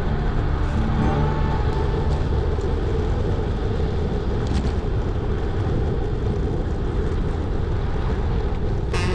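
Steady wind and road noise while riding a road bike: a constant low rumble of air buffeting the camera microphone, with no single event standing out.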